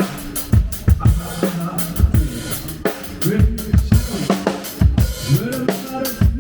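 Drum kit played at a band soundcheck: repeated bass drum and snare hits with cymbals, and low thuds that drop in pitch like toms.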